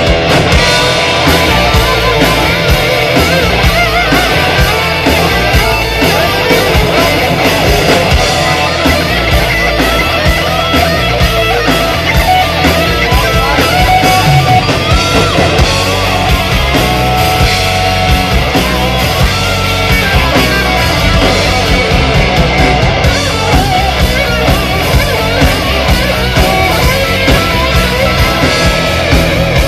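Live rock band playing loudly, electric guitars over a steady beat.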